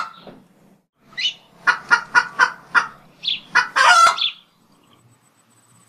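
Chicken calls: a short call about a second in, a quick run of about six clucks, another short call, then one long drawn-out call.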